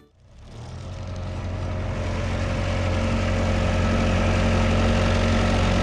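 Diesel engine running steadily, fading in over the first couple of seconds.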